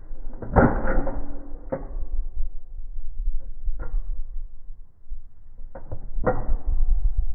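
Two shots from a 6.5 Creedmoor bolt-action rifle, about six seconds apart, each followed by a ringing tone that dies away over a second or so. In between come several sharp clicks of the rifle being handled, over a low rumble throughout.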